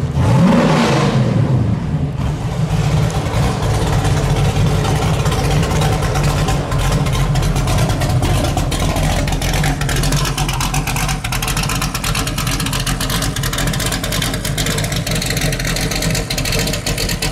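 De Tomaso Pantera's Ford V8 through straight-through exhausts. It revs once, a quick rise and fall in pitch about half a second in, then runs loud and steady at low revs as the car pulls away slowly.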